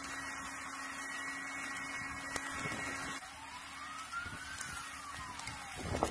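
Emergency vehicle siren wailing, slowly rising and then falling in pitch, over a steady hum that cuts off about three seconds in. A short clatter is heard near the end.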